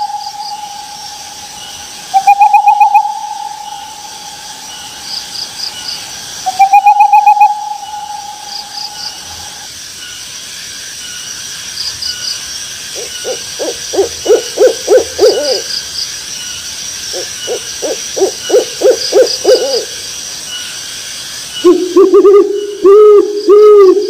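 Owl calls: a clear whistled hoot about 2 s in, then a longer one about 7 s in held for some three seconds. From about 13 s come two quick runs of rapid, lower pulsed notes, and near the end a few low arched hoots, over faint high chirping.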